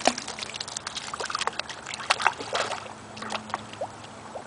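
Young long-haired dachshund wading into shallow water, a run of small, irregular splashes as it pushes through.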